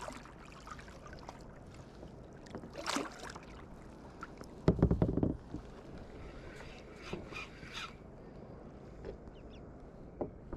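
Water lapping against a plastic sit-on kayak, with a short splash about three seconds in and a loud knock on the hull about five seconds in. Afterwards come light scratchy clicks of a spinning reel being handled.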